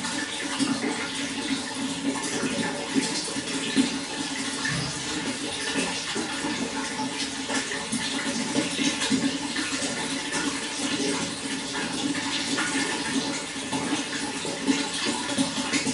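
Running water, flowing steadily without a break, with a steady low hum underneath.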